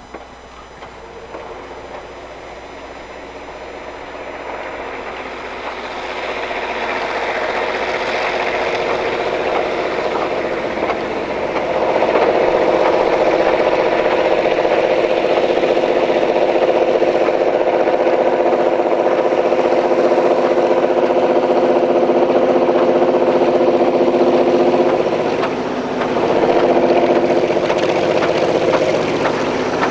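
Diesel locomotive engines growing louder over about twelve seconds as a train draws near, then running loud and steady, with a brief dip about 25 seconds in.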